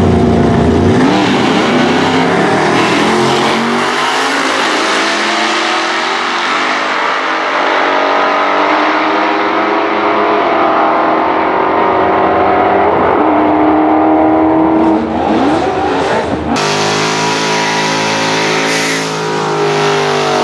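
Drag launch: a blown big-block Chevy V8 pickup and another car accelerate hard down the strip, their engines fading as they pull away. About sixteen seconds in, it cuts to the truck's supercharged big-block held at high revs in a burnout.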